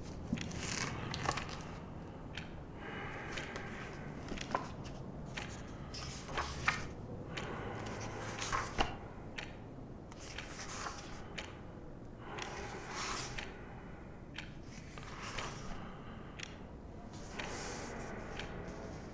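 Small-room ambience: a low steady rumble under a string of irregular small clicks, knocks and rustles of someone pottering about handling objects, with a handful of sharper clicks in the first half.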